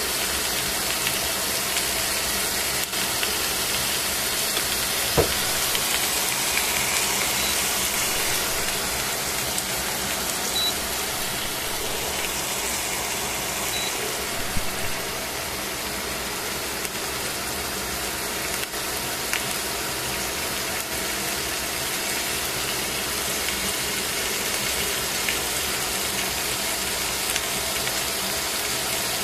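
Chicken thigh frying in a stainless steel pan: a steady, dense sizzle with a few small pops and a sharp click about five seconds in.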